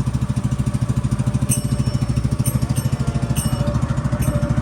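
Motorboat engine running steadily with a rapid, even chugging pulse.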